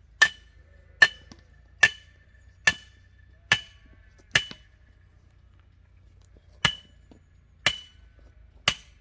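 Hammer blows on metal, each with a short ringing clink: six evenly spaced strikes a little under a second apart, a pause of about two seconds, then three more.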